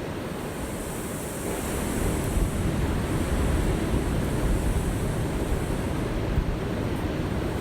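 Ocean surf washing steadily, growing a little louder about two seconds in.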